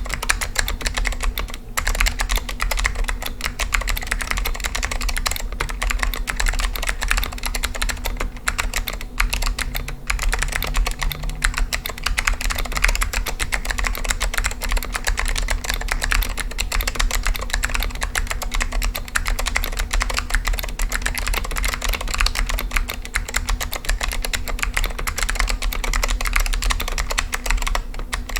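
Continuous fast typing on a stock Apple Extended Keyboard II with Alps SKCM White switches: a dense, unbroken run of key clicks, over a steady low hum.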